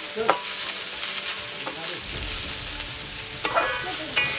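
Sliced onions sizzling steadily in hot mustard oil in an aluminium kadhai, being browned while a metal spatula stirs them. The spatula scrapes and clinks against the pan a few times, sharpest just after the start and near the end.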